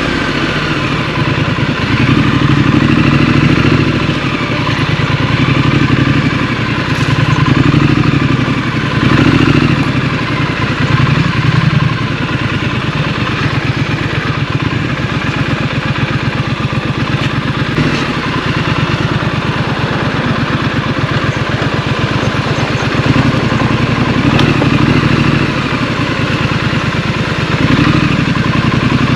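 Scrambler motorcycle engine running under way, its revs swelling and easing every few seconds with the throttle, with a few brief knocks.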